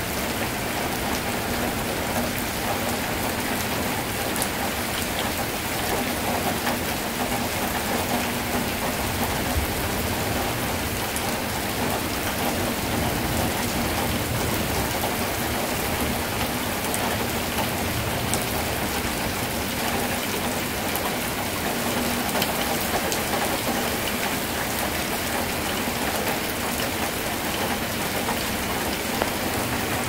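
Heavy torrential rain pouring steadily onto a wet road, paving stones, lawn and tree leaves, a dense even hiss with scattered sharper drop hits close by.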